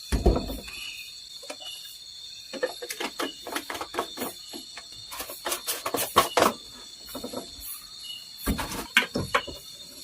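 Insects trilling steadily in the forest, with a run of irregular close clicks and knocks from something being handled, and heavier thumps right at the start and again about eight and a half seconds in.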